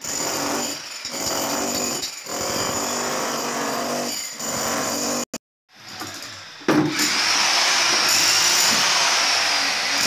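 Corded electric demolition hammer breaking up a concrete floor: it runs in stretches of a second or two with short pauses, drops out briefly near the middle, then runs steadily and louder from about seven seconds in.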